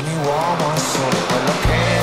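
Background music: a gliding melody over repeated bass notes.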